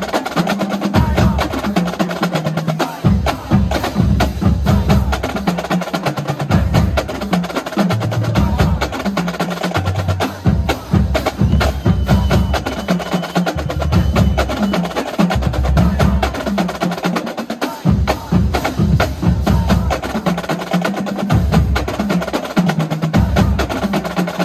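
Marching band drumline warming up: snare drums playing fast, dense strokes and rolls, with bass drums coming in and dropping out in short passages.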